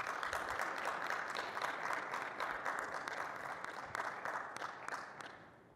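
Audience applauding: a dense, steady patter of many hands clapping that starts at once and fades out over the last second or so.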